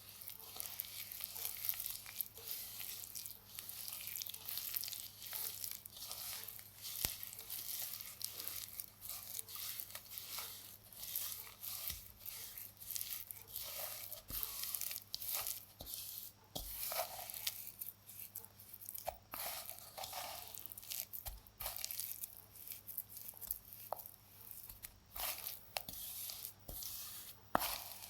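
Compacted baking soda being crumbled, giving a dense run of irregular crisp crackles and crunches, with a few louder crunches later on.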